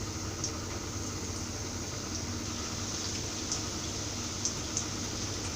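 Rusk-crumb-coated beef cutlets deep-frying in hot oil: a steady sizzle with a few small crackling pops, over a low steady hum.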